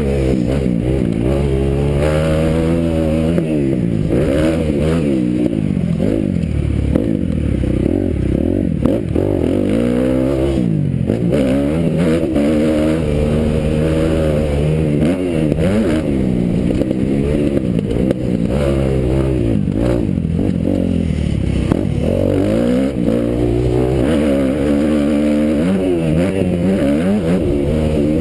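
Kawasaki motocross bike's engine revving hard and dropping off over and over as the rider accelerates, shifts and brakes around a dirt track, its pitch rising and falling every second or two.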